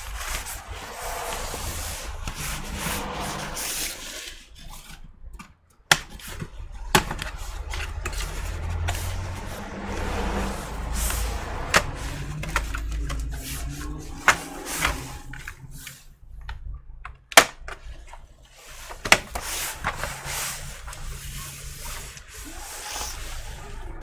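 Hands working on a plastic laptop: scraping and rubbing of parts, broken by several sharp, separate clicks of plastic or metal parts snapping or being set down.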